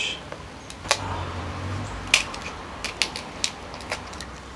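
King crab shell cracking and snapping as a spiny leg is broken and pulled apart by hand: a scattered series of sharp clicks and crackles, the loudest about one and two seconds in.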